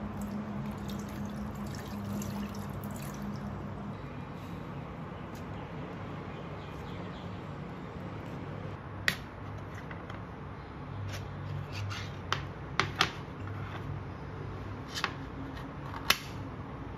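Hands washing oyster mushrooms in water in a stainless steel bowl: sloshing and dripping. In the second half come a handful of sharp clicks and taps as mushrooms are handled in the metal bowl and a tin is opened.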